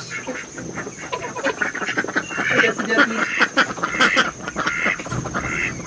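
Domestic geese and ducks calling: a dense, continuous run of short honks and gabbling quacks, many overlapping.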